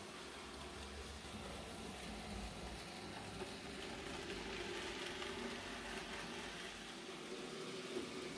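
N-scale model locomotive running with its train, giving a steady, faint whirring hum from its small electric motor along with the rolling of the wagons over the track.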